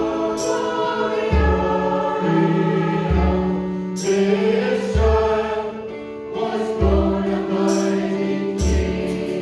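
Choir singing a hymn or anthem over sustained instrumental accompaniment, with the low bass notes changing about every second and a half.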